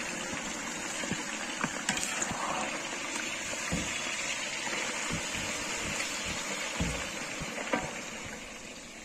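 Chicken frying in hot oil in a large cauldron: a steady, even sizzle of bubbling fat, with a few short low thumps along the way.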